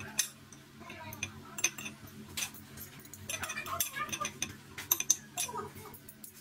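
A metal fork clinking and scraping against a plate while tossing cooked instant noodles, with scattered irregular clicks over a low steady hum.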